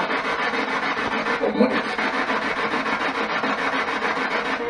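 P-SB7 spirit box sweeping through radio stations: a steady, rapidly chopped rasp of radio static.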